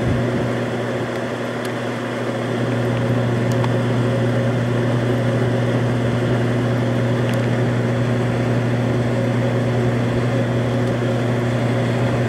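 Rooftop HVAC units running: a steady mechanical hum with a strong low drone and fan noise.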